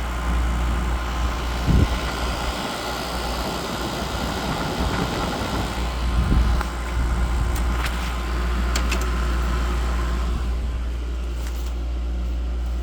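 Window air conditioners, a 2006 Amma and a Frigidaire, running: a steady low compressor hum under the rush of the fans, with a few light clicks. The fan noise eases slightly near the end.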